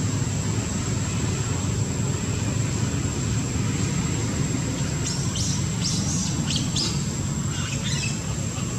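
Steady low rumble of outdoor background noise with a thin, steady high whine. Between about five and eight seconds in comes a quick run of short, high chirps, like small birds calling.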